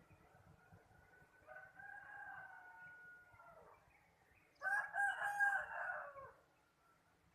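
Roosters crowing: a fainter, more distant crow lasting about two seconds, then a louder crow about a second later that drops in pitch at its end.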